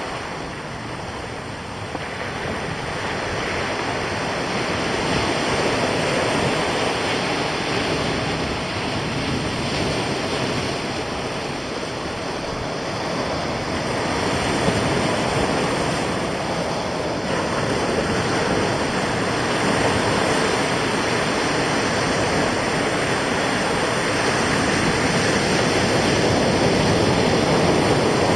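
Sea surf breaking and washing up a pebbly sand beach, its loudness swelling and easing slowly with each wave.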